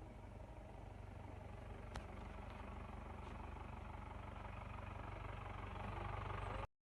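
A vehicle engine running steadily with a low hum, slowly growing louder, with a single click about two seconds in. The sound cuts off abruptly near the end.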